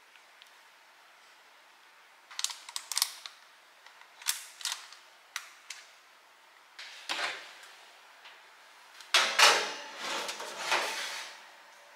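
Kitchen handling sounds: a scatter of sharp clicks and knocks, then longer scraping sounds about seven seconds in and, loudest, from about nine to eleven seconds in.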